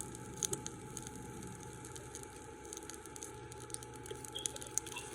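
Spam frying in a pan, sizzling with scattered crackling pops.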